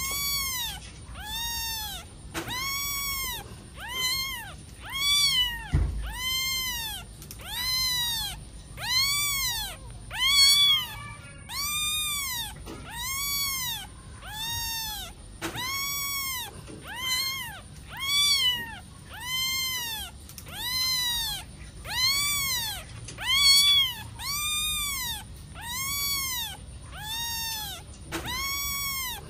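Kitten mewing over and over in high, thin calls, each rising and then falling in pitch, at a fairly even pace of about four calls every three seconds, with one short pause partway through.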